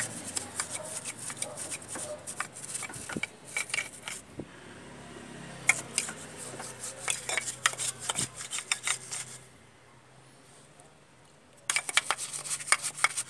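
Paintbrush scrubbing the oily timing gears and pulleys of a Toyota 2C diesel engine: a quick run of scratchy bristle strokes and light clicks against the metal, stopping for about two seconds near the end before starting again.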